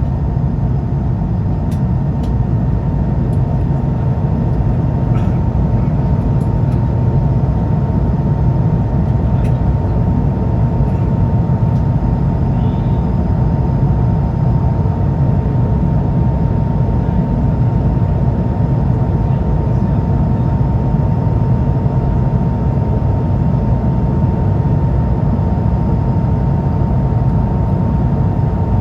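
Steady cabin noise of an Airbus A220-300 in the climb: a low airflow and engine rumble from its Pratt & Whitney PW1500G turbofans, with a thin steady tone just under 1 kHz running through it.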